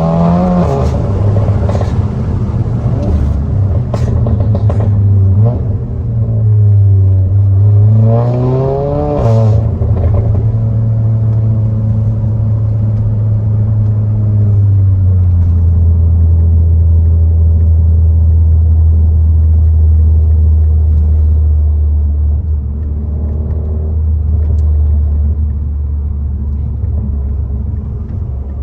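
Seat Cupra's engine and exhaust, fitted with a downpipe and resonator delete, while driving. The revs climb and fall near the start, with a few sharp cracks a few seconds in. The revs climb steeply again and then drop at a shift, and the car settles into a steady low drone that drops a little lower about halfway through.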